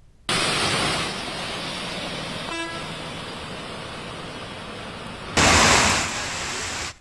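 Rain and road traffic on a waterlogged street, heard as a steady noise, with one short vehicle horn toot about two and a half seconds in. The noise grows louder for the last second and a half and cuts off suddenly.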